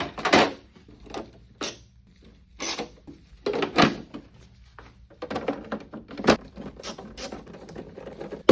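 Plastic body panels of a Saeco Magic coffee machine being fitted back on by hand: irregular knocks, clicks and scraping rattles as covers are pushed and seated into place.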